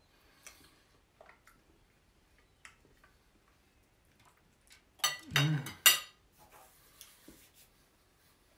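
Metal fork and knife clattering on a ceramic dinner plate as they are set down, a loud burst of about a second some five seconds in, after faint scattered clicks of cutlery during the last bites.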